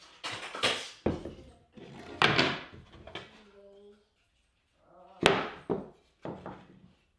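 Several sharp knocks and clunks, spaced irregularly over a few seconds, with brief snatches of voice between them.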